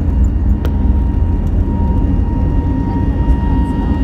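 Jet airliner's engines and rolling noise heard from inside the cabin while the plane moves along the runway: a heavy, steady low rumble with a faint even high whine over it.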